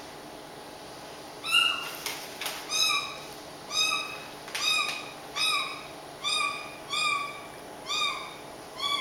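Caique parrot mimicking a cat's meow. It gives a string of about nine short meow-like calls, roughly one a second, starting about a second and a half in.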